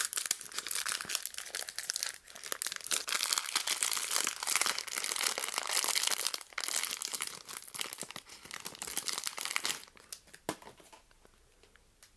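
A blind-box figure's wrapper being crinkled and torn open by hand: a dense crackling that stops about ten seconds in, then one light click.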